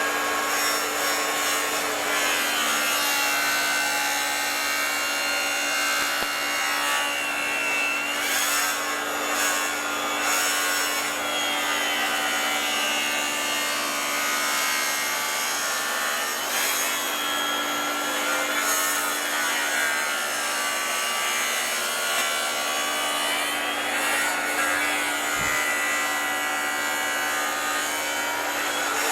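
Makita track saw cutting through a thick red mahogany slab, its motor whine rising and falling slowly as the blade is fed through the dense wood, over the steady hum of a connected dust vacuum.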